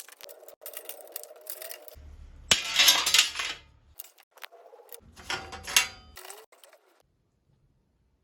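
Metal bicycle parts and tools clinking and clattering as the bike is taken apart, with two louder stretches of rattling.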